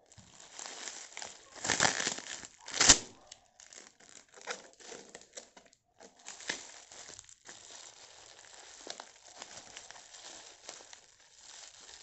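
Plastic bubble wrap being pulled off a parcel by hand, crinkling and crackling steadily. The loudest, sharpest crackles come about two and three seconds in.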